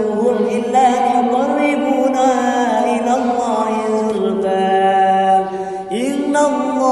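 A man reciting the Qur'an in melodic tilawah style, holding long ornamented notes. There is a short breath pause a little over five seconds in, then the voice comes back on a rising note.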